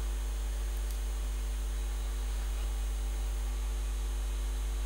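Steady low electrical mains hum with a faint hiss, with a faint click about a second in.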